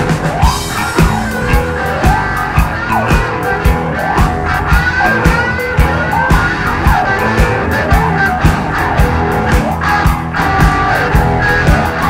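Live rock band playing an instrumental passage on electric bass guitar, electric guitar and drum kit: a steady beat of about two drum hits a second, with high notes sliding up and down above it.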